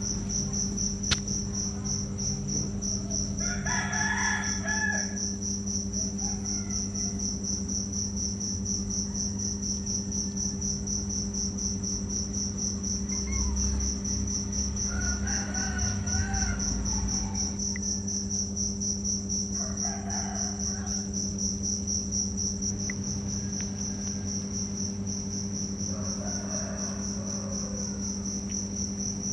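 A cricket trilling steadily in a fast, unbroken pulse, over a low steady hum. A few short, faint calls come and go about four times.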